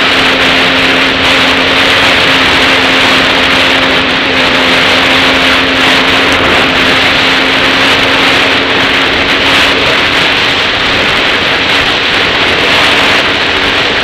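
Dirt bike engine running at a steady, even pitch while cruising on a dirt road, under loud steady wind rush on the helmet-mounted microphone.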